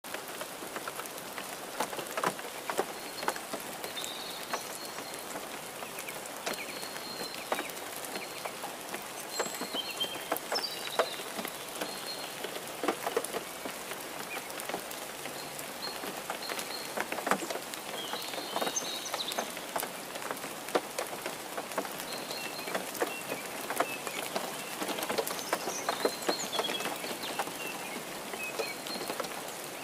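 Steady rain falling, with many separate drops pattering close by, and faint short high chirps now and then.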